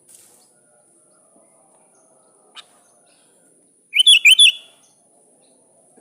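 Sooty-headed bulbul singing one short, loud phrase of about four quick notes, each sliding up then dropping, about four seconds in.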